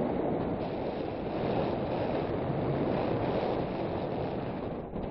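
Steady rush of wind over an action camera's microphone while skiing downhill at about 20 mph, mixed with the hiss of skis sliding on packed snow.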